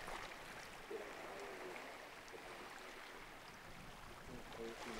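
Faint steady wash of seawater, an even hiss, with a few small ticks.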